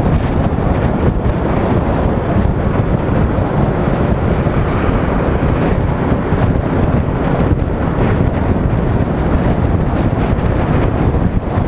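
Wind buffeting the camera microphone on a moving motorcycle: a loud, steady low rumble of wind and road noise at riding speed.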